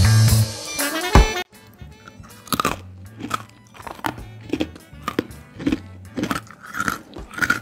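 Background music that stops about a second and a half in, followed by a crisp homemade star biscuit crunching as it is bitten and chewed: a series of irregular crunches close to the microphone.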